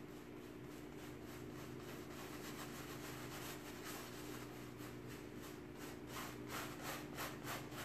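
Paintbrush scrubbing and dabbing chalk paint into thick upholstery fabric: a scratchy rubbing in short strokes, about two a second, getting louder near the end.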